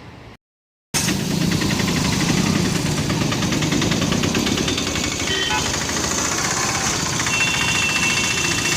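A train's engine running loud and steady with a rapid mechanical rattle, starting suddenly about a second in after a brief silence. A thin high steady tone joins faintly near the end.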